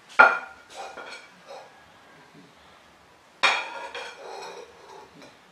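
A white bowl and a utensil clinking as they are handled and set down on a hard floor: two sharp ringing clinks about three seconds apart, with a few lighter knocks between.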